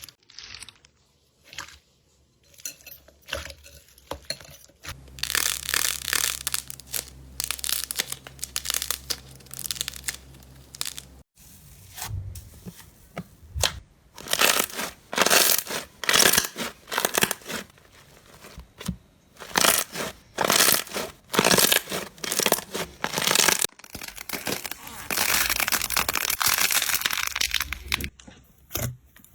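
Slime being squeezed, pressed and pulled by hand close to the microphone: rapid runs of short squishes and pops, several a second. The sound changes abruptly about 11 and 24 seconds in as one clip gives way to the next.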